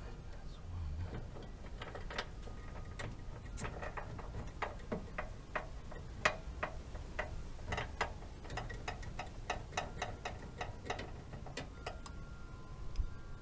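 Metallic clicking of hand tools worked on the heat pump's refrigerant service valves, where the valve cores are being fitted before the refrigerant is released. The clicks are scattered at first, then run at about two to three a second through the middle.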